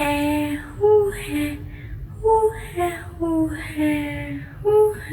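A high voice repeating short, breathy 'huh' and 'hah' exclamations at varying pitches in a sing-song way, about eight in a row, over a faint low hum.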